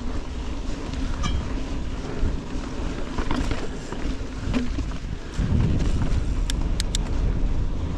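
Mountain bike riding a dirt forest trail: wind buffeting the action-camera microphone over the rumble of tyres on the ground, with scattered clicks and rattles from the bike. The rumble gets louder about five and a half seconds in, and a few sharp clicks come shortly after.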